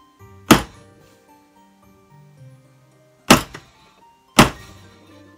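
A hammer striking the steel punch of a disc cutter on a rubber base, punching a disc out of a copper sheet. Three heavy, ringing blows: one about half a second in and two close together near the end.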